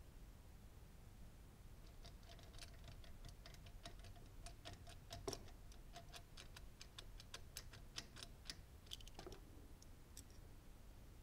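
Faint, quick clicks and ticks of metal retaining clips and plastic connectors being pried off Porsche 911 Carrera fuel injectors with a small screwdriver. There is a dense run of clicks through the middle, with one sharper click about five seconds in.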